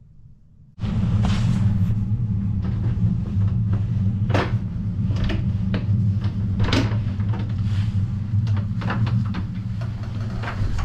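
Clicks and knocks of a door and of the camera being handled, over a steady low rumble that starts abruptly about a second in.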